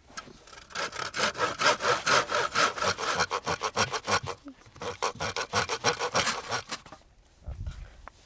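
Hand saw cutting through wood in fast, even back-and-forth strokes for about six seconds, stopping near the end, followed by a low thump.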